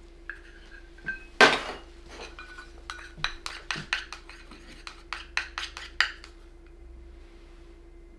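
Utensils clinking and tapping against dishes: a quick run of light clinks with short ringing tones, the loudest about a second and a half in, ending about six seconds in.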